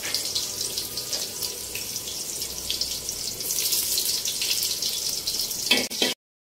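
Chopped onions sizzling and crackling steadily in hot oil in a large aluminium pot. Near the end a spoon goes into the pot with a brief louder clatter, and the sound cuts off suddenly just before the end.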